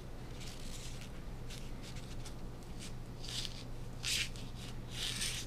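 Faint, soft scratching and rustling in short strokes as a folding knife's blade is worked against a foam packing peanut that will not cut, over a steady low hum.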